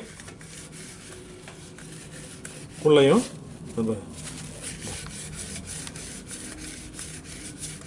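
Wiping and rubbing the inside of a mixer-grinder jar with a cloth or tissue: a steady scratchy rubbing made of many small strokes against the metal.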